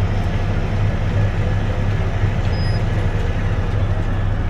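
Heavy diesel truck engine idling, a steady low rumble heard from inside the cab.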